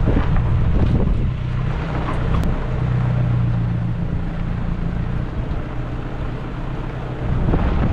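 Toyota Hilux engine running steadily at low speed, with tyre noise from a dirt track, heard from outside the vehicle.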